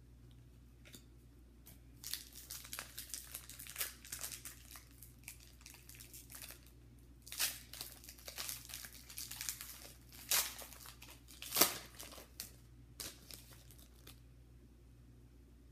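Foil wrapper of a trading-card pack being torn open and crinkled in the hands, in irregular bursts of crackling with two louder rips near the end.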